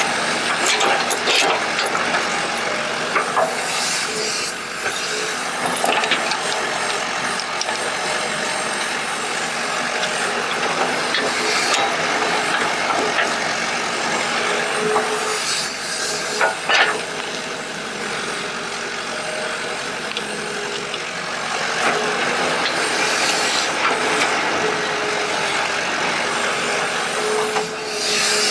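Excavator digging: steady mechanical running with shifting whine and a few short knocks.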